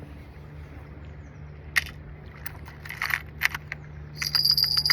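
Fishing tackle being handled: a few sharp clicks and rattles, then, near the end, a quick run of clicks with a thin high whine. A low steady hum runs underneath.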